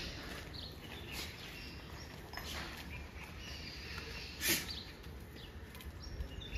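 Background noise with faint bird chirps and a few scattered clicks or knocks; the loudest knock comes about four and a half seconds in.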